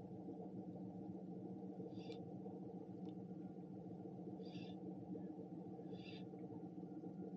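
Faint steady electric hum, typical of a bow-mounted electric trolling motor holding the boat in place, with three brief soft rasps about two, four and a half and six seconds in.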